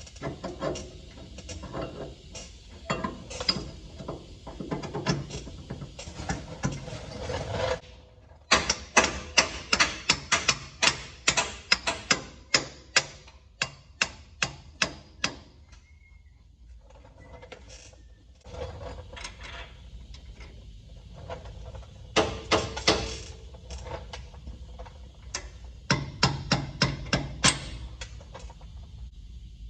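Hand tools working on steel truck suspension parts: runs of sharp metallic clicks or knocks, about three a second, coming in bursts with short pauses between them.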